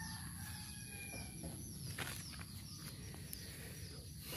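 Chickens: a run of short, high, falling peeps repeating a few times a second, over a steady thin high whine and a low rumble.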